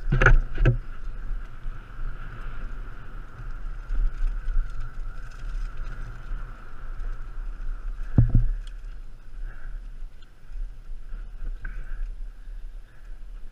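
Mountain bike running downhill on a dirt singletrack: steady wind and tyre rumble with a continuous hiss, and sharp rattling knocks as the bike hits bumps, several in the first second and one about eight seconds in.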